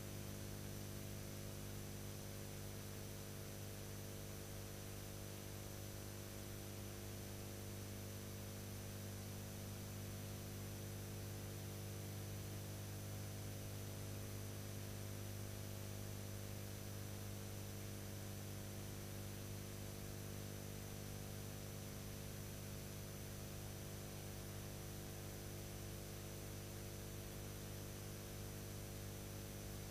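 Steady electrical mains hum with a row of overtones over a constant hiss, with no other sound: the empty soundtrack of a silent newsreel transfer.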